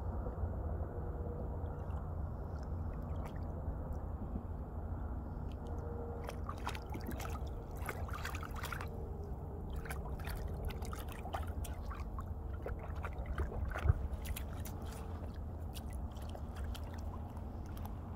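A cocker spaniel wading and pawing in shallow water at the edge of a gravel shore: a run of small splashes and sloshes from about a third of the way in until near the end, with one sharper knock about two-thirds through, over a steady low rumble.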